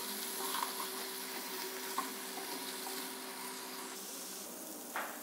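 Paneer cubes sizzling as they shallow-fry in a little oil in a nonstick frying pan, a steady hiss with a few light taps of a wooden spatula.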